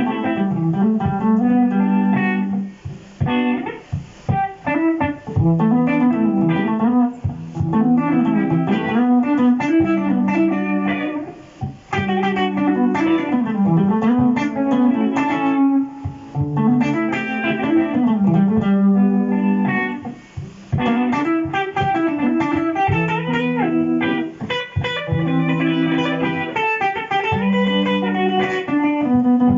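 Electric guitar played through a Boss GT-100 multi-effects unit, improvising a jazz-style melody with many sliding, bending notes over a looped guitar backing.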